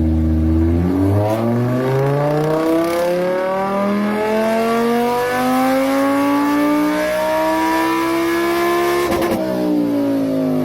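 Lamborghini Huracán's V10 engine accelerating, its pitch climbing steadily for about eight seconds. About nine seconds in there is a brief break, after which the pitch drops and keeps easing down.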